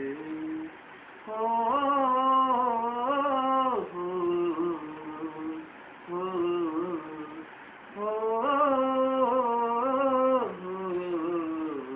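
A man's voice singing a wordless melody in Punjabi song style, unaccompanied, in long held notes that waver and slide. There are two louder, higher phrases, one starting about a second in and another about eight seconds in, with softer lower notes between them.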